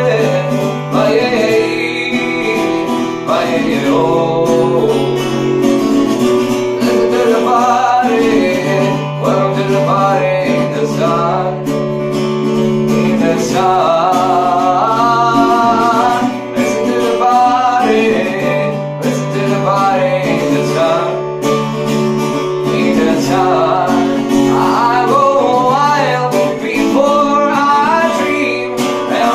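A man singing a slow song, accompanying himself on acoustic guitar.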